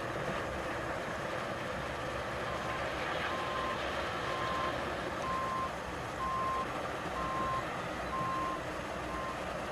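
A dump truck's backup alarm beeping steadily, about once a second, eight beeps starting a couple of seconds in, over a steady rushing background noise.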